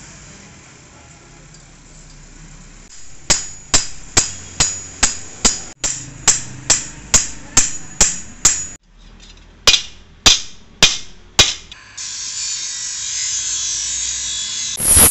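Hammer blows ringing on steel as a scythe blade is worked on an anvil block with a hand-held steel tool: a fast even run of strikes, about three a second, then a few more spaced-out blows. About twelve seconds in, a bench grinder starts grinding the blade with a steady high hiss that swells near the end.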